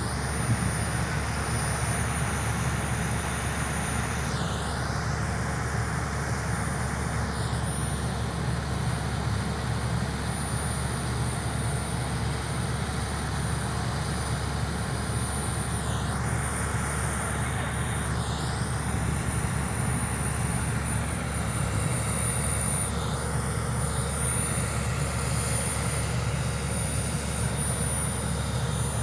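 Heavy diesel equipment running steadily: a constant low engine drone with no hammer strikes.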